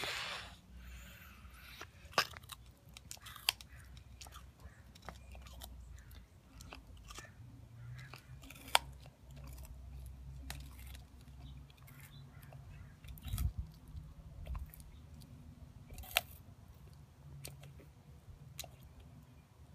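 African spurred (sulcata) tortoise biting and chewing raw baby carrots: irregular crisp crunches, with a few sharper snaps as pieces break off.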